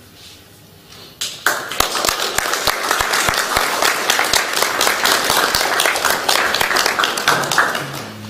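Applause: many hands clapping, breaking out suddenly about a second in and dying away near the end.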